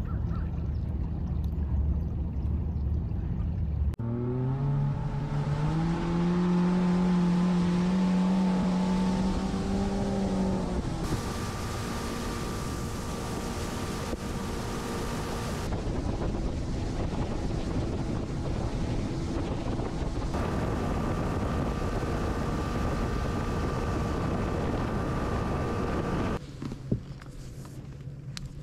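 Outboard engine of a G3 bass boat, first idling low and steady, then rising in pitch as the boat accelerates. It then runs at speed with rushing wind and water and a steady high whine. Near the end it drops to a quieter low hum.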